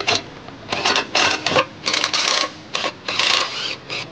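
Tools and hardware being handled under the car: about seven short rattling, scraping bursts in quick succession, with brief gaps between them.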